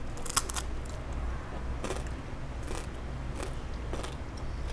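Close-miked crunching as a piece of fried nurungji (crispy scorched rice) is bitten and chewed: one loud crunch about half a second in, then a few fainter crunches roughly a second apart. A steady low hum lies underneath.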